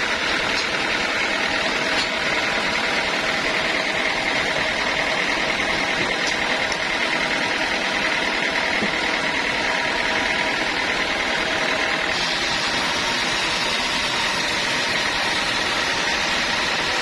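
Sawmill machinery running steadily, with a high whine that holds through the middle and changes about twelve seconds in.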